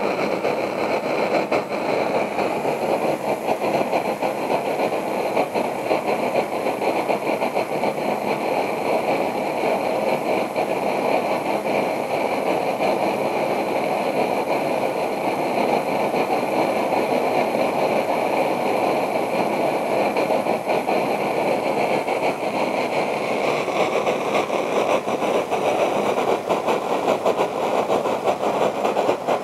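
Copper coil jet alcohol stove burning steadily under a pot of water that is close to the boil, a constant rushing flame noise.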